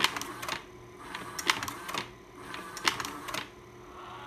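Vivitar 5000 AF slide projector's slide-change mechanism cycling three times, about a second and a half apart. Each cycle is a short run of clicks and clacks as the round tray advances and a slide is pushed into the gate, over the steady hum of the projector's cooling fan.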